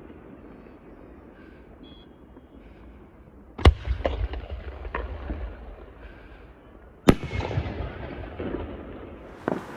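Aerial fireworks shells bursting. There are two sharp, loud bangs about three and a half seconds apart, each followed by a couple of seconds of smaller crackling pops, and one more small pop near the end.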